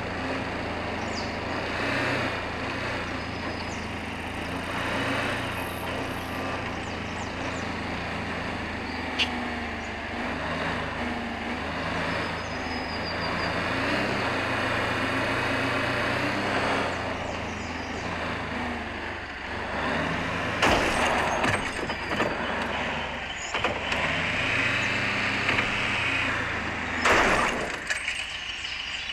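4x4 vehicle driving off-road, its engine running steadily under rumbling road noise. Two loud thumps come through, one about two-thirds of the way in and one near the end.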